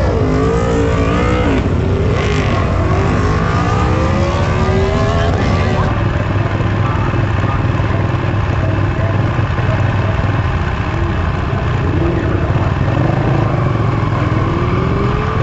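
Triumph Street Triple RS three-cylinder motorcycle engine running under a steady low rumble, its revs climbing over a few seconds in the first half before the sound settles.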